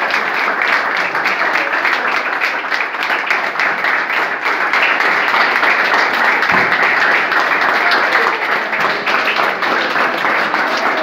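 A crowd of people applauding steadily, many hands clapping at once.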